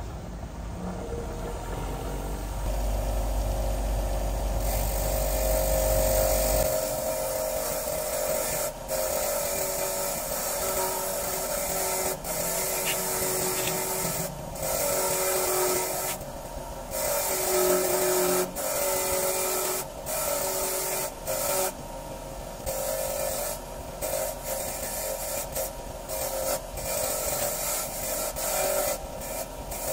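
Abrasive rubbing and scraping of hand or power-tool work, chopped into many short pieces with abrupt breaks between them.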